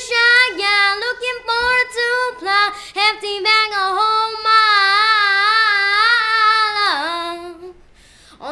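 A boy singing unaccompanied, mostly long held notes with a wavering vibrato, breaking off shortly before the end.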